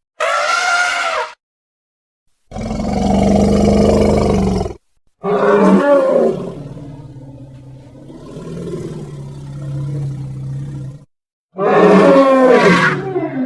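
Elephant sound effects played one after another with short silent gaps: a short high trumpet, a low rough roar, a longer call that sinks into a low rumble, and near the end another trumpet that slides down in pitch.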